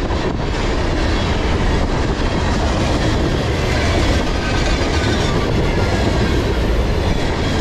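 Freight cars of a long train rolling past at about 42 mph: a loud, steady rumble of steel wheels on rail.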